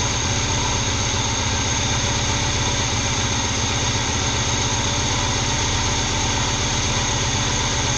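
A Moskvich 2140's M412 1.5-litre four-cylinder engine idling steadily, warmed up with the choke off, while its carburettor idle mixture is being tuned; it had been running over-rich.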